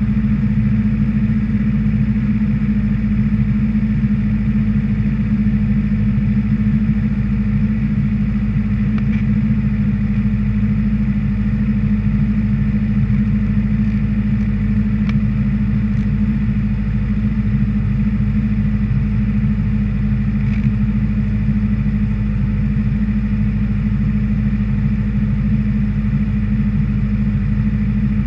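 Honda CBR600RR's inline-four engine idling steadily, heard through the bike-mounted camera, with no revving.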